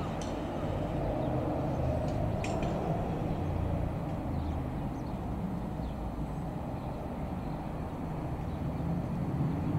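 Piper PA-28-180 Cherokee Archer's single Lycoming four-cylinder piston engine and propeller droning steadily in flight.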